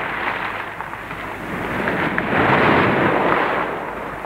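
Sea waves washing in, swelling to a peak about two and a half seconds in and then drawing back, heard on a muffled old off-air radio recording.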